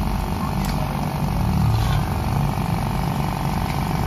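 A 550-watt electric air compressor running steadily as it pumps up the air-horn tank, its pressure still climbing toward the 120 psi cut-out.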